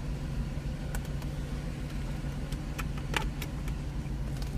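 Mercedes-Benz R129 SL engine idling steadily, just started after an intermittent no-crank fault. A few light clicks around a second and three seconds in.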